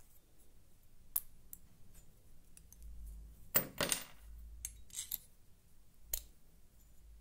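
Sharp metallic clicks and snaps as cutting pliers grip and nip at the toothed rim of a thin steel cup, with a louder metal clatter on the wooden table about three and a half seconds in, as the pliers are put down.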